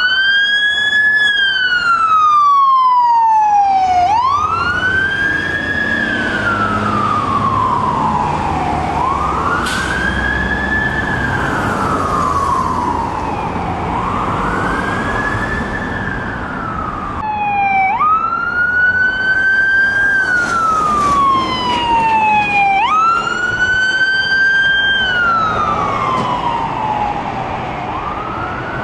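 Emergency vehicle siren on a slow wail: each cycle climbs to its top pitch and then glides down over about five seconds. In the second half it twice jumps straight back to the top instead of climbing. A low engine and traffic rumble runs underneath.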